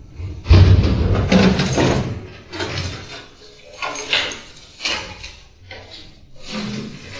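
Irregular knocks, bumps and clatters of a door and household things being handled, in uneven bursts with short pauses.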